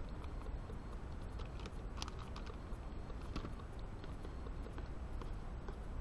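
A spoon clinking and scraping in a small metal camping pot as rice is poured in and stirred, in scattered irregular clicks over a steady low rumble.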